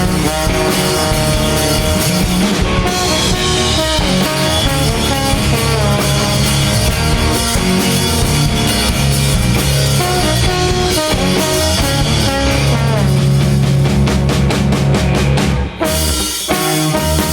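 Instrumental passage of a small rock band playing, led by drum kit and baritone guitar. A quick run of drum hits comes near the end, followed by a short break.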